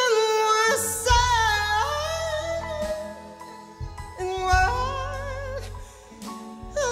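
A woman singing a slow soul-blues ballad live, holding long notes with vibrato over a band of electric bass, drums and Hammond organ.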